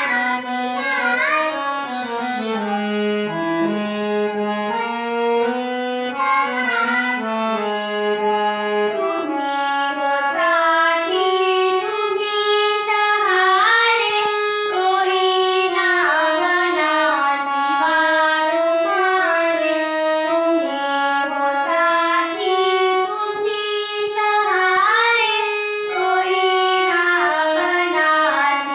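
Music: a girl singing a devotional prayer song, with an instrument, reedy like a harmonium, accompanying her melody.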